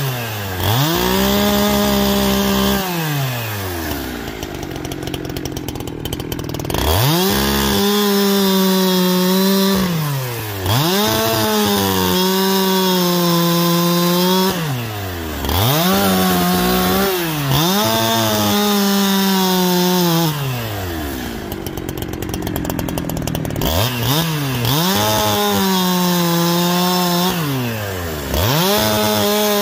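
Farmertec Holzfforma G372XP two-stroke chainsaw bucking maple logs. About seven times the engine revs up to full throttle and holds there through a cut of a few seconds, then falls back to idle between cuts, with two longer idle spells.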